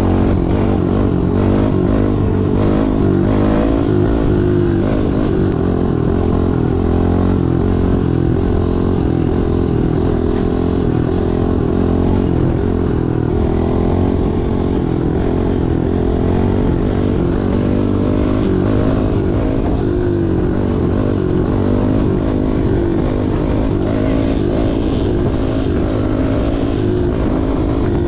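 Kawasaki KLX110L pit bike's small four-stroke single-cylinder engine running under way, its revs rising and falling as it is ridden.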